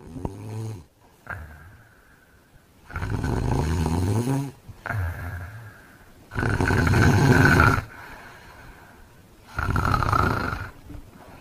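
A man snoring heavily in his sleep. There are three long, loud snores about three seconds apart, the middle one the loudest, with shorter, quieter breath sounds between.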